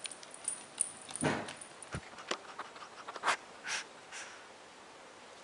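Small Shih Tzu–Maltese mix dog snorting and sniffing in short bursts close up, three quick sniffs about half a second apart in the middle. Light clicks of its claws on a wooden floor come early on.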